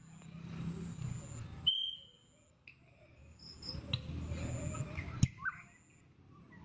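Wind rumbling on the phone microphone, with faint high insect buzzing on and off. A short, high whistle blast comes about two seconds in, and a sharp click comes near the end.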